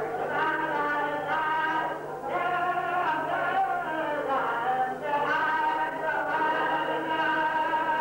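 A choir of voices singing unaccompanied, with long held notes that glide from pitch to pitch and a steady low hum beneath.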